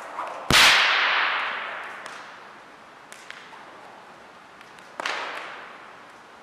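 Two sharp whip cracks, about four and a half seconds apart, each ringing on in a reverberant hall; the first, about half a second in, is much the louder, with a few faint clicks between them.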